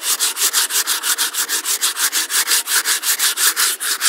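Sandpaper rubbed by hand over a veneered timber table top in rapid, even back-and-forth strokes. The sanding raises sawdust that works into wet wood glue to fill a crack.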